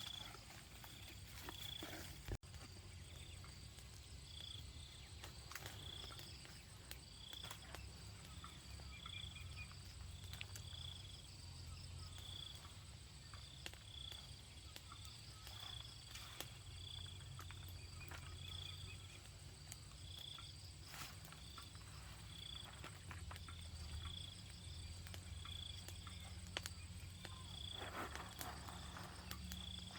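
A small animal chirping: short high chirps repeated about once a second, over a low steady hum and scattered faint clicks.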